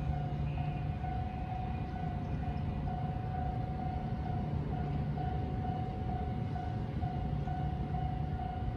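Japanese level-crossing warning bell ringing over and over at one steady pitch, over a low rumble that comes and goes.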